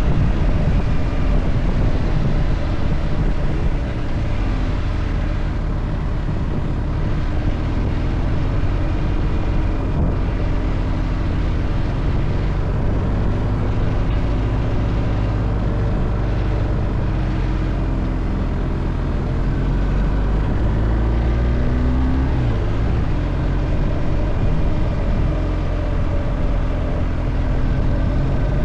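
Car on the move: a steady engine note with road noise, the engine note rising and falling a few times as speed changes.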